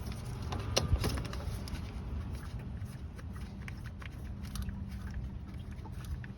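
Scattered small metallic clicks and taps of hand tools and loose parts being handled while the thermostat housing screws are backed out, with a louder clack about a second in.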